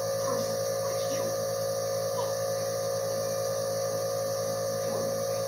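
Steady hum from a running ceiling fan, one unchanging tone over a low drone.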